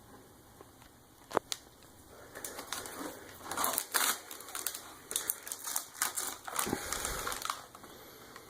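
Plastic blind-bag pack being torn open and handled, a run of irregular crinkling crackles and clicks starting a couple of seconds in, after one sharp click.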